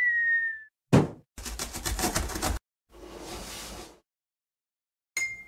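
Cartoon intro sound effects in quick succession: a short whistle-like tone that dips slightly, a single thump, about a second of rapid rattling, a softer hiss, and a bright ding near the end.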